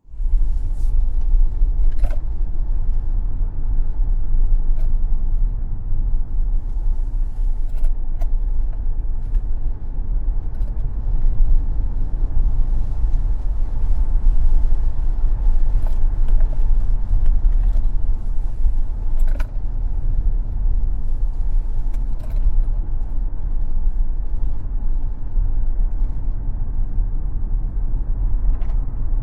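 Tesla Model X electric car driving on a racetrack: a loud, steady low rumble of road and tyre noise, with a few short clicks.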